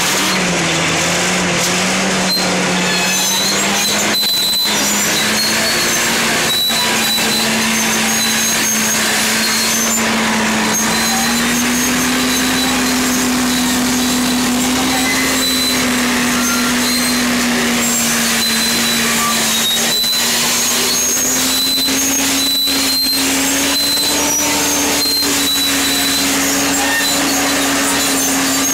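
Fiat-Allis AD20B crawler's Iveco diesel engine pulling steadily under heavy load while ripping deep into tough, rocky ground, its note slowly rising over the stretch. Short high metallic squeaks and occasional clanks from the crawler's running gear ride over it.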